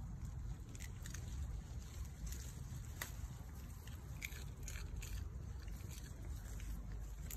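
Yorkshire terrier chewing pea pods and nosing through the pea vines: scattered crisp crunches and leaf rustles over a steady low rumble.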